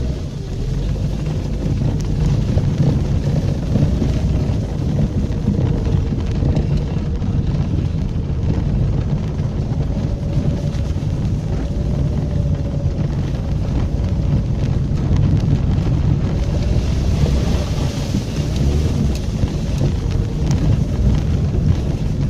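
VAZ-2110 car driving through a muddy field: its engine running under load with revs rising and falling, over a heavy low rumble of the tyres and body working through the mud.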